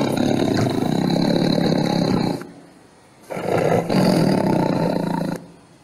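Recorded tiger roars: two long roars with a pause of about a second between them.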